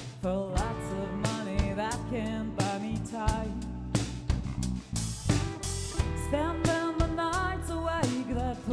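A live band playing a song: electric guitar, bass guitar and drum kit with steady drum strokes, under a woman's lead vocal.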